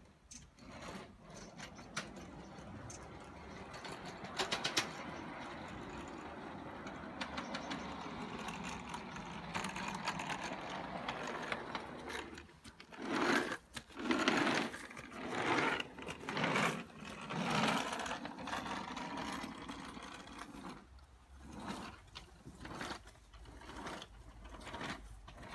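Small ride-on rail car rolling along 5-inch-gauge portable steel track, its wheels rumbling and clattering on the rails. It gets loud and uneven for a few seconds about halfway through, then fades again.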